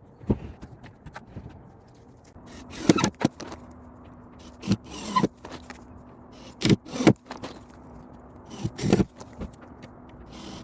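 Irregular knocks, clatters and short scrapes of hand building work, in clusters a second or two apart, over a faint steady hum.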